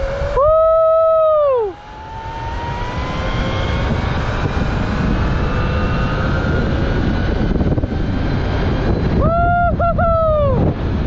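Zipline trolley running down its steel cable: a thin whine that climbs steadily in pitch as it gathers speed, under a wind rush on the microphone that grows louder. The rider lets out a long held whoop about half a second in, and a broken whoop near the end.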